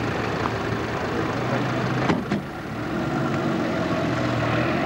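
SsangYong Musso 602D's Mercedes-Benz five-cylinder diesel engine running as the 4x4 drives slowly past. Two sharp clicks come a little over two seconds in.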